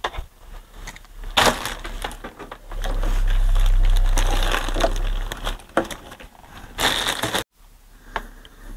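Handling noise as audio equipment is set up for a test: scattered clicks, knocks and rustles, with two louder noisy bursts, one about a second and a half in and one near the end. A loud low hum runs for about three seconds in the middle.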